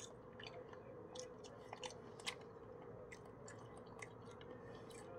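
Faint chewing of seasoned fries, with soft mouth clicks scattered through, over a steady faint hum.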